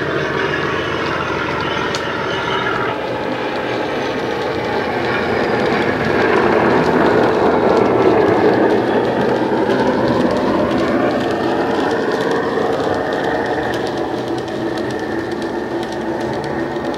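Simulated Class 37 diesel engine sound from a DCC sound decoder, played through an EM2 speaker in an OO-gauge model locomotive running with a train of wagons. It is loudest as the locomotive passes about eight seconds in, and a tone rises in pitch from around ten seconds, over the clicking of the model's wheels on the track.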